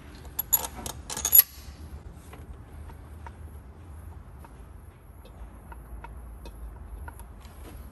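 Light metal clinks and ticks of new cylinder head bolts and washers being handled and set into the bolt holes of the cylinder head. A quick cluster of sharp clinks comes about a second in, then faint scattered ticks.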